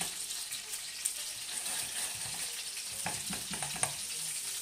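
Food sizzling in pans on a gas hob: a steady frying hiss, with light stirring in a small saucepan near the end.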